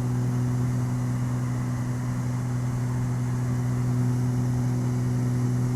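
Steady in-flight drone of a Beechcraft G58 Baron's twin six-cylinder Continental engines and propellers, a constant low hum with no change in pitch.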